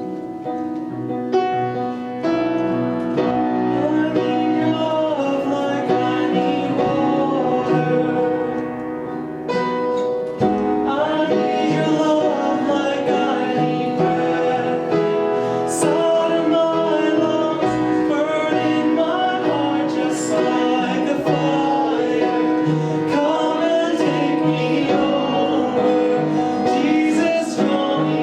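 Worship music with piano, filling out about ten seconds in with fuller accompaniment and singing.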